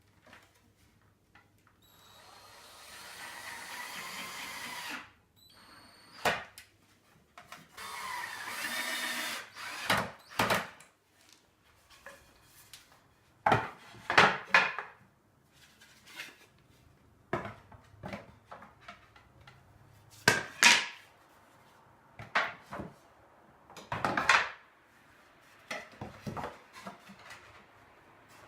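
A power drill runs twice, for about three seconds and then about two seconds, its whine wavering in pitch as it works into the wood. After that come a series of sharp, irregular wooden knocks and clatter as the pieces are worked on.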